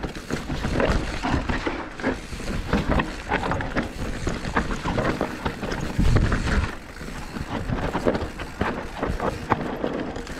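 Mountain bike rolling fast down a dirt trail: tyre rumble over the ground with constant rattling and knocking from the bike and handlebar camera mount, and wind on the microphone. A heavier low jolt about six seconds in is the loudest moment.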